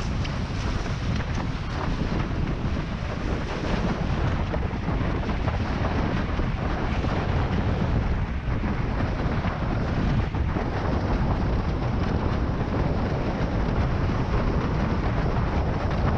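Heavy wind buffeting the microphone over the rush and spray of water under a windsurf board planing at speed. The noise grows a little louder as the board accelerates.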